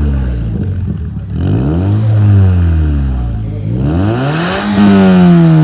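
Toyota Vios NCP93's four-cylinder engine revved repeatedly through its exhaust, the pitch falling and rising several times and held high near the end.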